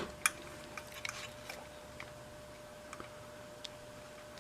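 Scattered small clicks and taps of a wire and hand tools being handled at a workbench, with a sharper click at the start and another at the end, over a faint steady tone.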